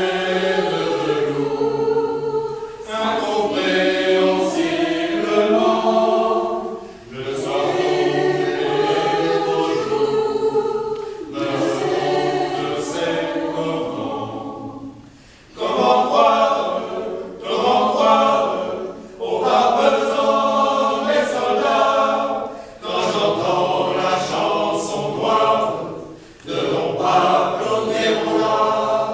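Mixed choir of women's and men's voices singing in several parts, in phrases of a few seconds separated by short breaks.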